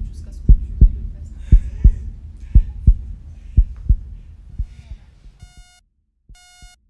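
Heartbeat sound, a steady double thump about once a second, fading out over the first five seconds. Then, from about five and a half seconds in, short electronic beeps sound about once a second.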